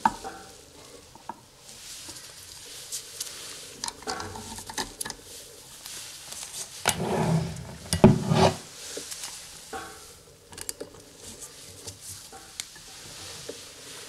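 Steel parts of an oil friction-test rig being handled as a lever arm is fitted and a weight plate is hung from it: irregular metal clicks, scrapes and clanks, with a louder clatter about seven to eight seconds in.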